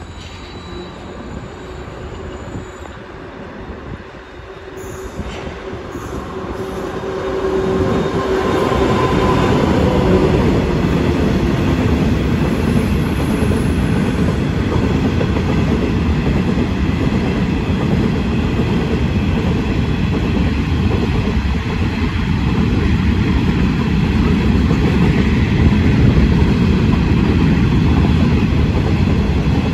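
Pacific National TT-class diesel locomotives and a coal train draw near, and the sound grows over the first eight seconds. An engine tone falls away about ten seconds in, and after that comes the steady loud rumble and rail noise of coal hopper wagons rolling past.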